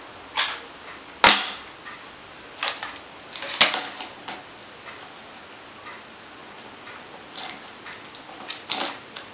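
Plastic toys, a robot action figure and a toy spider, being set down and handled on a wooden tabletop: scattered knocks and clicks, the sharpest about a second in and another a couple of seconds later.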